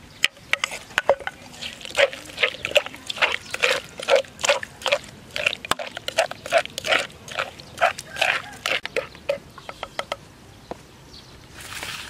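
Wet chili paste being pounded and mixed in a large clay mortar with a wooden pestle and a spoon: quick squelching, knocking strokes, about two to three a second, that thin out near the end.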